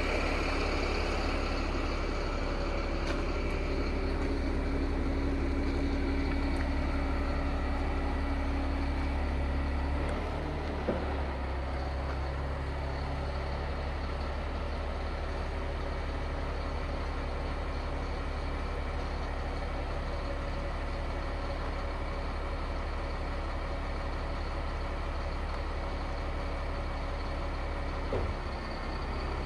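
Caterpillar C7 diesel engine running steadily with the PTO engaged, driving the hydraulic pump for the crane. Its note drops slightly about ten seconds in.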